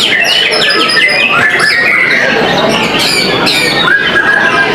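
White-rumped shamas (murai batu) singing during a contest session: rapid, varied song of many quick, sharp, downward-sweeping notes, over a dense steady din.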